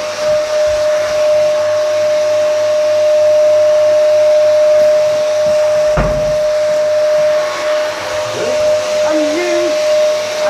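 Steady motor whine with one held tone over a rushing hiss, like a small electric blower running; a single sharp knock about six seconds in.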